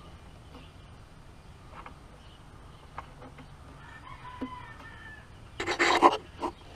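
A rooster crowing in the background, with a louder burst lasting about half a second near the end, among faint small clicks of plastic parts being handled.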